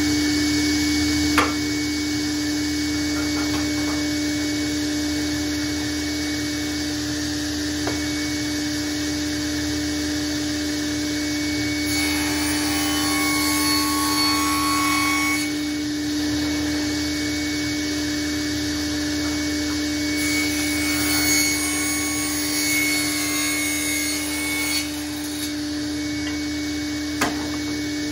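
Sliding table saw and dust extractor running with a steady motor hum, and the saw blade cutting through a glued-up laminated wood blank twice: a few seconds of cutting noise about twelve seconds in and a longer cut about twenty seconds in.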